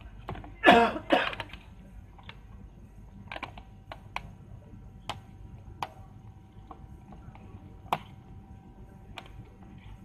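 Hard plastic packaging being pried and worked open by hand, giving scattered sharp plastic clicks and snaps every second or so. About a second in come two louder, short rough noises.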